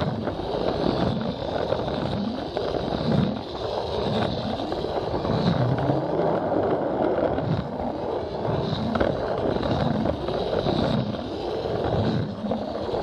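Plarail toy train with an onboard camera car running along blue plastic track: the battery motor whirs and the wheels roll and rattle on the track joints and curves, heard close up from the train itself, with a thin high whine that comes and goes.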